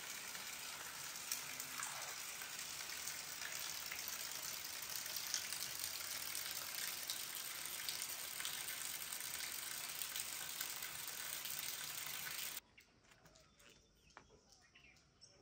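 Steady rain falling, an even hiss. It cuts off abruptly about twelve seconds in, leaving a much fainter background.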